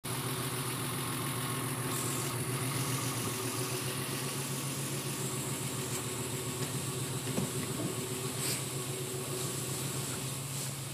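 Alfa Romeo 75 V6 Quadrifoglio Verde's V6 engine idling steadily.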